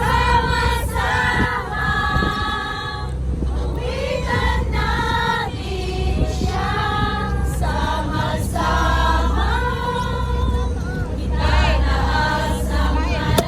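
A group of voices singing a worship song together, over a steady low rumble.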